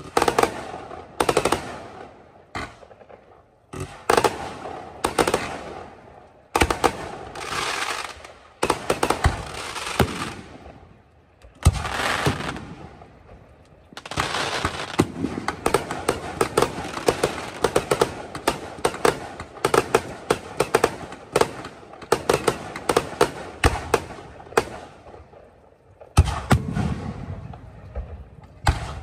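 Aerial fireworks shells bursting: sharp bangs, each trailing off in crackle, coming in clusters and then a long, dense rapid-fire barrage, closed by a deeper boom with a low rumble near the end.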